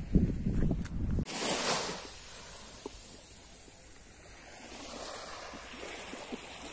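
Wind buffeting the microphone, cut off abruptly about a second in, followed by a calm sea with small waves washing gently onto a sandy shore.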